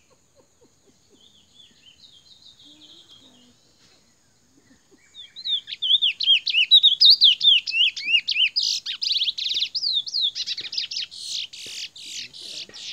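Curió (chestnut-bellied seed finch) singing close by, after a few soft high notes: about five seconds in, a loud run of quick rising and falling whistled notes begins, breaking into rapid buzzy trills.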